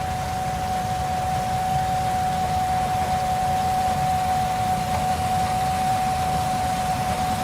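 Combine harvester running steadily at working speed: a constant low rumble with a steady high whine over it.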